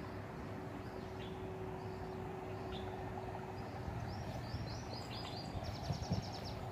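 Small birds chirping, with a quick run of chirps about four seconds in and a rapid trill near the end, over a steady outdoor hiss and a faint low hum.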